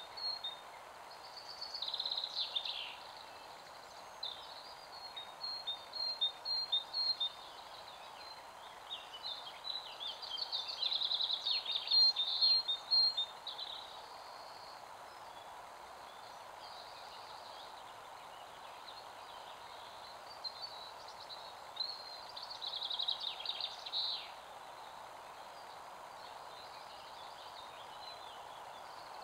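Songbirds singing in short bursts of quick, high chirping phrases, four bursts in all with the longest and loudest in the middle, over a steady background hiss.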